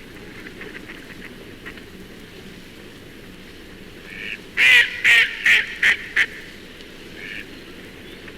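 Mallard quacking: a run of five loud quacks over about a second and a half, each shorter than the last, with a few fainter calls just before and after.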